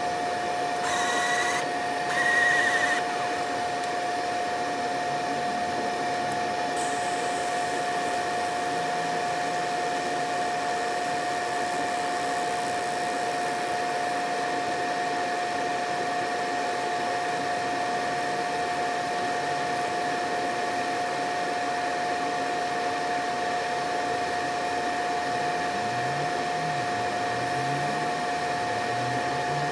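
Phone-repair laser machine running while it removes a phone's back glass: a steady fan-like whir with a constant hum. Two short electronic beeps sound in the first three seconds.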